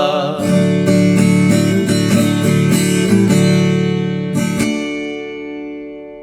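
Closing bars of a sertanejo raiz song: the last sung word at the very start, then strummed acoustic guitars ending on a final chord about four and a half seconds in that rings and fades away.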